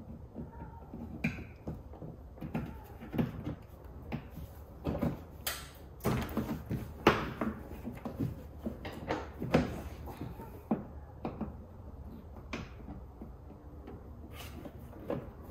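Plastic twist-lock trim fasteners being turned and popped out of a car's underbody panel, with the panel handled: a string of irregular plastic clicks and knocks.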